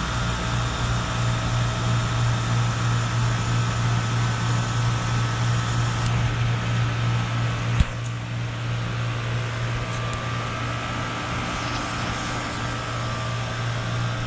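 1987 Bryant 1.5-ton heat pump (model 540A) outdoor unit running with a steady compressor hum at the end of its defrost cycle. A sharp click about eight seconds in, after which it runs a little quieter.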